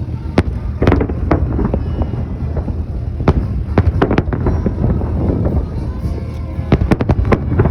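Fireworks salute: shells bursting in a string of sharp bangs at irregular spacing, about a dozen, over a steady low rumble.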